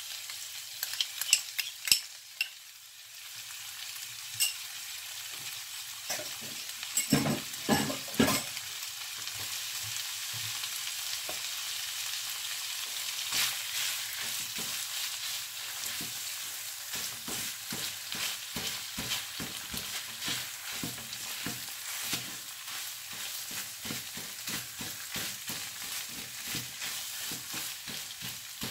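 Shredded beef and tomato purée sizzling in a nonstick frying pan while a silicone spatula stirs and scrapes through it in quick, repeated strokes, with a few louder knocks in the first several seconds.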